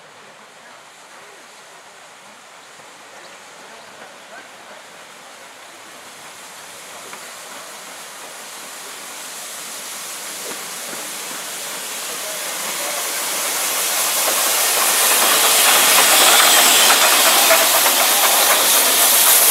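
GWR No. 813 saddle tank steam locomotive coming in slowly, its hiss of steam growing steadily louder as it approaches and draws alongside.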